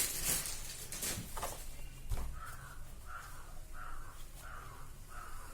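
A crow cawing repeatedly, one short caw about every two-thirds of a second, starting a little over two seconds in. Before that there are a couple of faint knocks from handling.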